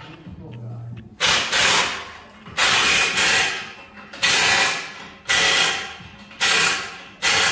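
Pneumatic air tool run in short bursts, about six in all, roughly a second apart, each starting sharply and fading out, while fasteners on a car's exhaust are worked under the lift.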